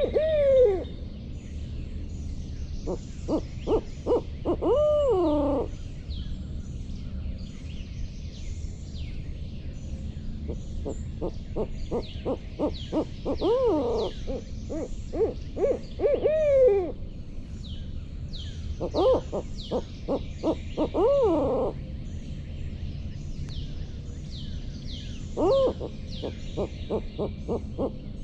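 Barred-owl-style hooting in four rounds of quick rhythmic hoots. Most rounds end in a long drawn-out note that slides up and then down, the 'who-cooks-for-you-all' pattern. Faint high, falling chirps run underneath.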